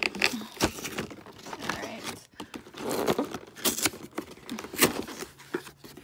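Packaging of a Pokémon card collection box being torn open and crumpled by hand: irregular rips, crackles and scrapes.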